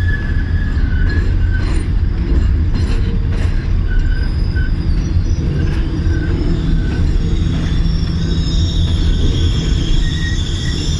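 Rocky Mountaineer bilevel passenger coaches rolling past close by: a steady low rumble of steel wheels on rail, with thin high-pitched wheel squeals coming and going over it.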